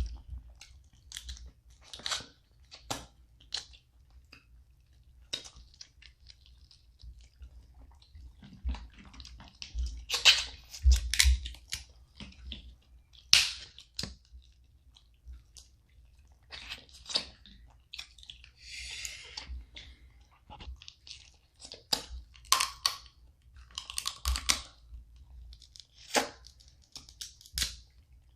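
Close-up eating of seafood-boil snow crab legs: chewing, with irregular short snaps and crunches of the shells being cracked and bitten open.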